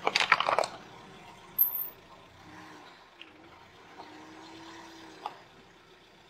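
A car tyre rolling onto a wooden board of upright nails: a dense burst of crackling and clicking at the start, another sharp crack about a second and a half in, then a few scattered clicks.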